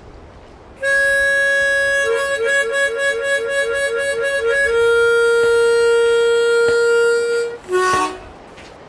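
Harmonica playing a short phrase: a held note, then a quick warble between two neighbouring notes, then a long lower held note, ending with a brief lower note that bends near the end.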